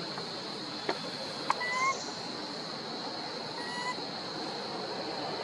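Outdoor evening ambience: a steady high insect drone, with two faint short rising animal calls and two sharp clicks early on.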